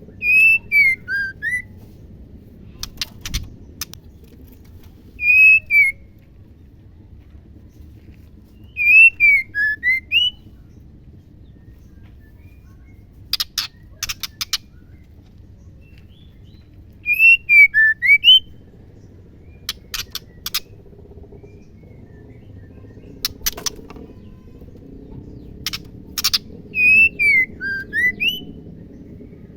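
Female white-rumped shama calling: short whistled phrases of a few notes that dip and rise, repeated every few seconds. Between the phrases come brief dry clicking rattles, over a steady low hum.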